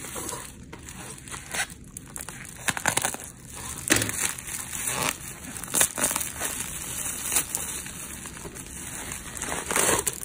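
Plastic packing material being crumpled and torn open by hand, an irregular rustle with sharp crackles throughout.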